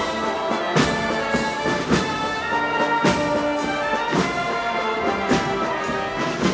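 Brass band playing a slow procession march: sustained brass chords over a heavy drum beat about once a second.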